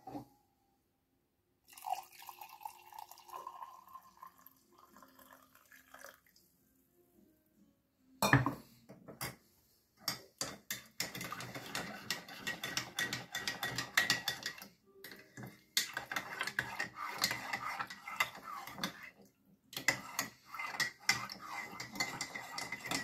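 Hot milk poured from a steel pot into a mug for a few seconds, then a single knock. After that, a metal teaspoon stirs the coffee briskly, clinking fast and steadily against the sides of the mug.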